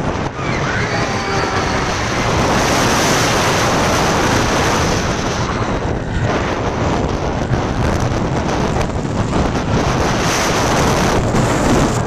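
Heavy wind buffeting the microphone and the rumble of the California Screamin' steel roller coaster train running at speed along its track.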